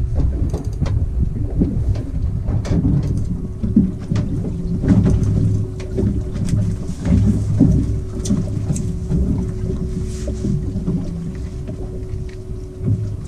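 Wind rumbling on the microphone aboard a small boat at sea, with a steady hum and scattered light knocks.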